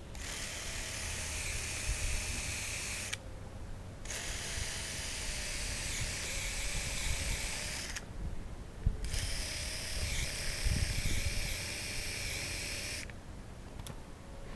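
Cordless drill boring 40 mm entrance holes into a larch log, running in three bursts of a few seconds each with short pauses between, with a couple of knocks during the last burst, and stopping near the end.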